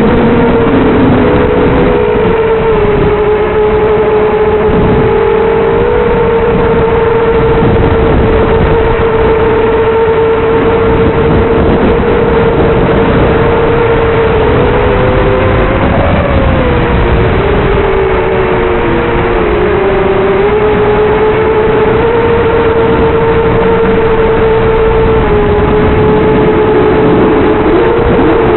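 Quadcopter's four brushless motors (Multistar Elite 2204-2300KV) spinning 5-inch three-blade props: a steady whine over a rushing noise, its pitch rising briefly about halfway through and then dipping as the throttle changes.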